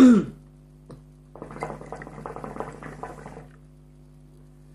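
Hookah water bubbling for about two seconds as a pull is drawn through the water in the base.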